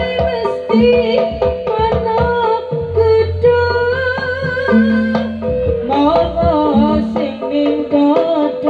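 Live East Javanese kuda kepang (jaranan) ensemble music: hand drums beating under a wavering melody line, with a low steady tone held for a couple of seconds midway.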